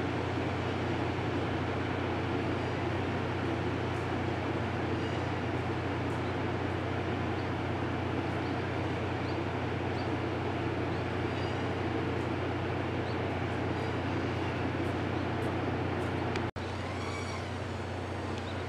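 Steady mechanical hum with a constant hiss from trains standing in the railway yard. It breaks off for a moment about sixteen and a half seconds in and then continues a little quieter.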